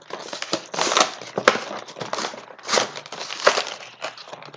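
An action figure's plastic and cardboard packaging being pried and pulled open: irregular crinkling and crackling, with a few sharp clicks.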